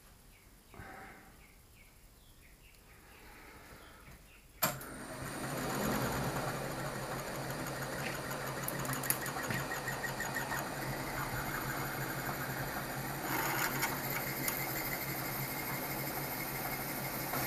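Mill-drill spindle motor switched on with a sharp click about four and a half seconds in, then running steadily with a hum as a drill bit bores into a metal block clamped in the vise.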